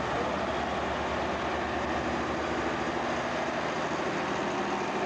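Massey Ferguson pulling tractor's diesel engine running steadily, with no revving.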